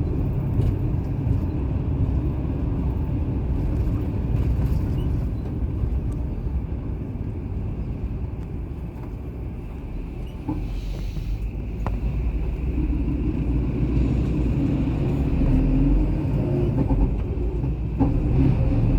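A car driving, with a steady low rumble of engine and tyres. The rumble eases about halfway through, then builds again.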